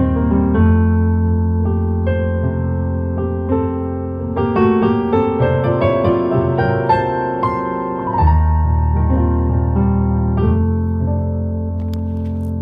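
Electronic keyboard played with a piano tone: slow chords over held low bass notes, with a busier run of higher notes in the middle. The bass changes about eight seconds in and again near ten and a half seconds.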